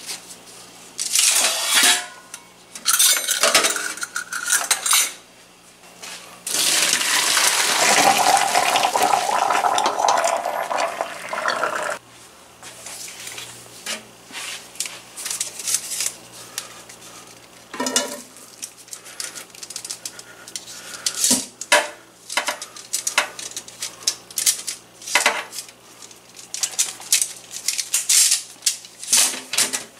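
Boiled noodles being drained at a stainless steel sink: a few seconds of rushing, as of hot water and noodles poured through a mesh strainer. It is followed by many short clinks and clatters of a utensil against the strainer and a steel pot as the noodles are moved back into the pot.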